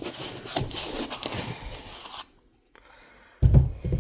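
Packaging rustling and scraping as a tool is taken out of its box, then a loud thud about three and a half seconds in as something is set down.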